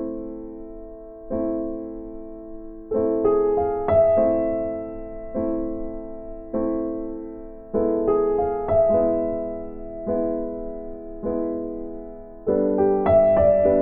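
Piano music with slow, evenly spaced chords that ring and fade, broken up by short runs of quicker notes.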